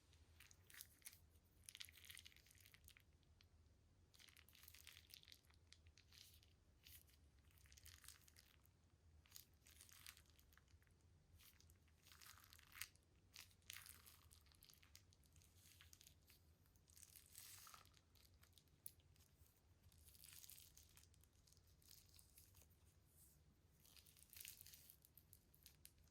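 Faint, irregular crinkling and rustling of plastic piping bags being handled, in short bursts every second or two, over a low steady hum.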